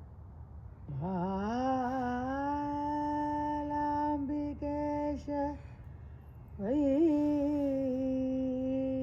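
A solo voice singing unaccompanied in long, held notes: the first slides up into its note about a second in and holds it for some four seconds with small dips, then after a short pause a second long note slides in and holds.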